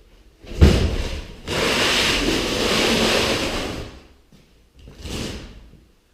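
Cardboard shipping box being handled: a heavy thump about half a second in, then a long sliding scrape of cardboard lasting about two seconds, and a shorter scrape near the end.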